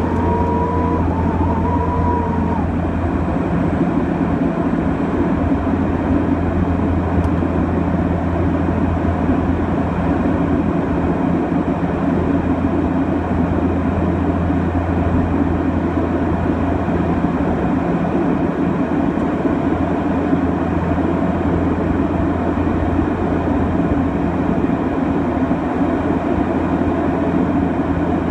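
Steady drone of a King Air 200's twin PT6A turboprop engines and propellers, heard from inside the cabin, with a deep hum that eases a little about 24 seconds in. A short wavering tone sounds twice in the first couple of seconds.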